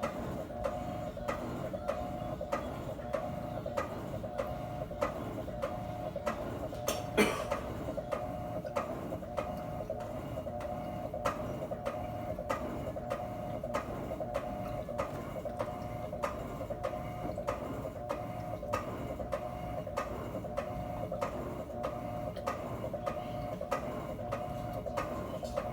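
Electrolux 12 kg washing machine running: a steady hum with a regular tick about twice a second, and one louder click about seven seconds in.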